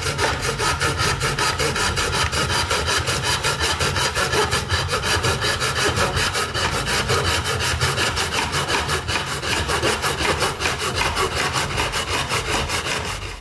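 Fine-toothed back saw cutting through a white molding strip in a plastic miter box: quick, even back-and-forth sawing strokes.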